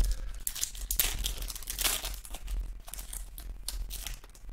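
Foil wrapper of a Panini Mosaic football card pack crinkling and tearing as it is peeled open by hand: irregular crackles, loudest about one and two seconds in, thinning out near the end.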